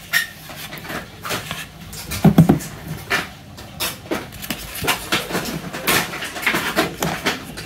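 Hard plastic parts of a toy doctor table set being handled and fitted together: a run of irregular clicks, taps and knocks of plastic on plastic.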